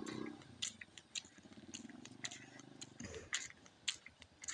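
An animal's low, pulsing call lasting about three seconds, with scattered small clicks around it.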